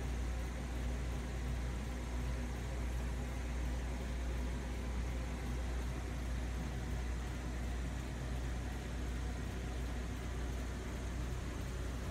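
Aquarium pump running with a steady low hum under an even hiss.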